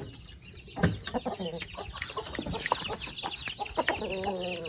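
Chicks peeping rapidly in high, short chirps, with chickens clucking and a few sharp knocks from the wooden coop door.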